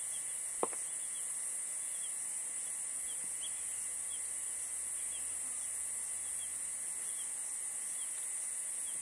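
Steady high-pitched insect chorus, with short chirps repeating irregularly over it and a single sharp click a little over half a second in.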